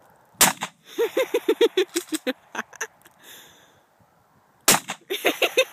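Two shotgun blasts about four seconds apart, each followed by a quick run of short, pitched sounds.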